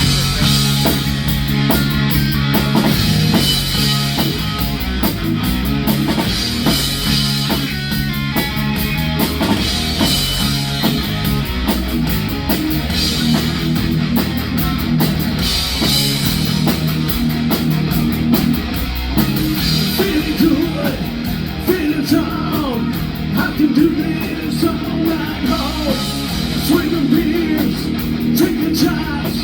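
Rock band playing live and loud: electric guitar, bass and drum kit, with a singer.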